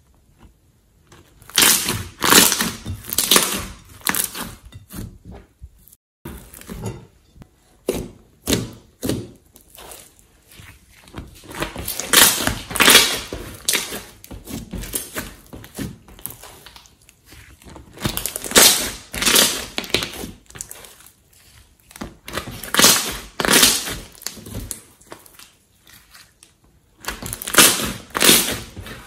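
Hands squeezing, stretching and pressing slime: wet squelching and crackling in bouts a couple of seconds long, about every four to five seconds.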